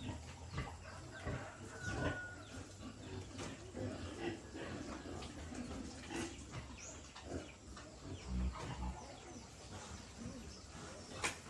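Farm animal sounds: scattered short grunts and calls from livestock, with birds chirping.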